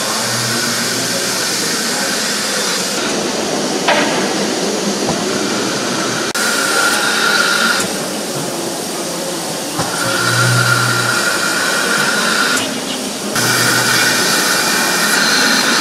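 A standing ČSD class 555.0 steam locomotive (an ex-German Class 52 2-10-0) venting steam with a loud, steady hiss. A high whistling note rides on the hiss in some stretches, and there is a single sharp knock about four seconds in.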